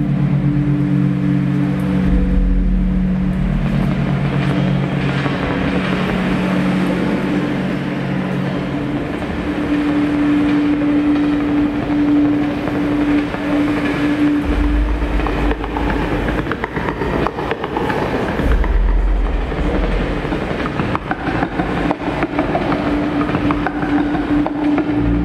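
Electronic sound design from an audiovisual light show over loudspeakers: a held low tone under a dense rushing, rumbling texture, with deep bass swells about halfway through and again a few seconds later.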